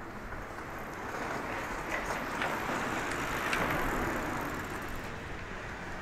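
A vehicle driving past, its rushing noise swelling to a peak a little past the middle and then fading away.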